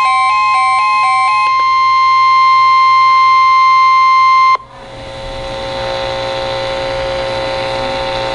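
A steady, high-pitched weather-radio alert tone, with a short beeping melody stepping between two notes over it for the first second and a half. The tone cuts off suddenly about four and a half seconds in. A hiss of static with a steady hum then swells up and fades away, ahead of the alert message.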